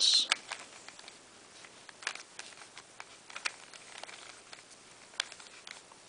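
A 3x3 Rubik's Cube being turned by hand: scattered light plastic clicks as its layers rotate and snap into place.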